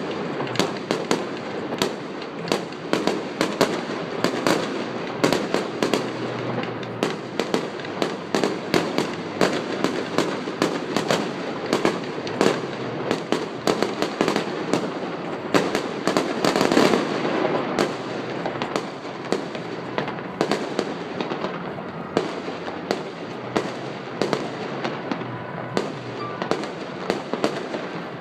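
Fireworks going off in a dense, continuous barrage: many sharp bangs and cracks several times a second, over a crackling haze. The barrage is loudest and thickest about two-thirds of the way through.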